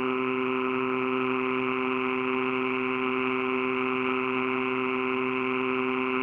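Steady ambient background drone: a few low tones held without change under a soft band of hiss.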